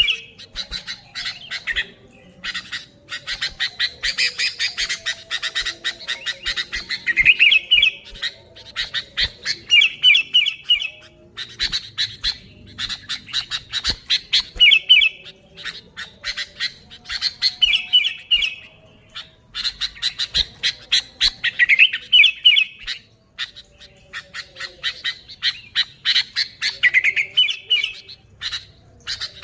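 Sooty-headed bulbul calling without pause: a fast, dense run of short harsh notes, broken roughly every three seconds by a brief phrase of rising whistled notes.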